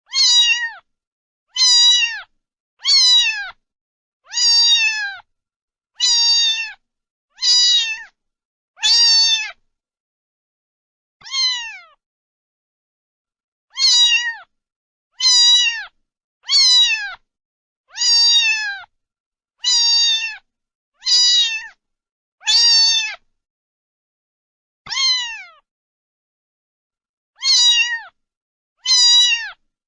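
Domestic cat meowing over and over: about eighteen short meows, each falling in pitch, one every second or two with a few longer pauses.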